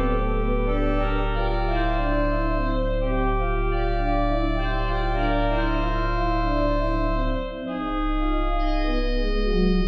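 1889 Merklin pipe organ playing music in the Phrygian mode: sustained chords moving over a held bass note, which stops about three-quarters of the way through while the upper voices carry on.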